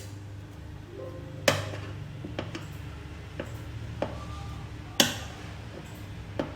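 Hand tools and hard parts knocking and clinking as they are handled, with two sharp knocks, about a second and a half in and again about five seconds in, and a few lighter clicks between, over a steady low hum.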